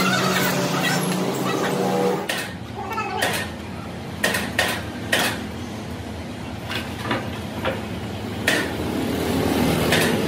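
A steady low machine hum with sharp knocks at irregular intervals, about eight in all after the first two seconds. A drawn-out pitched sound, like a voice or call, rises over the hum at the start.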